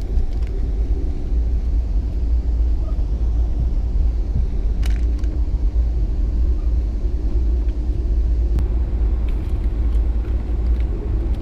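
Passenger train running at speed, heard from inside the coach: a steady low rumble with a few sharp clicks, one about five seconds in and another near nine.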